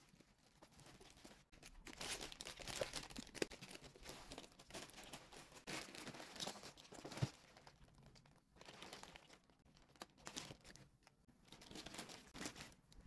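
Plastic mailing bag crinkling and rustling in irregular bursts as hands handle it and pull it open.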